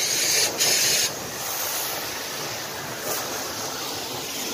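High-pressure washer jet hissing as it sprays a truck's wheels and chassis. The loud hiss cuts off about a second in, leaving a softer, steady rush of noise.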